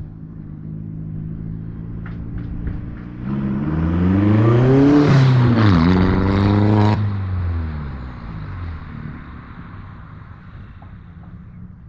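2003 VW New Beetle 1.8T turbo four-cylinder, exhausting through a catless 3-inch downpipe and a Cherry Bomb glasspack muffler with no resonator, idling and then revved up twice in quick succession. A hiss over the revs cuts off suddenly as the throttle closes, and the engine falls back to idle.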